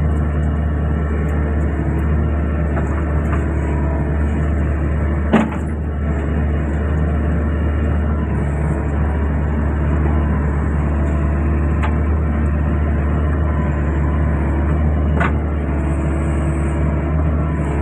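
Hydraulic excavator's diesel engine running steadily with a deep hum, with one sharp knock about five seconds in and two fainter clicks later on.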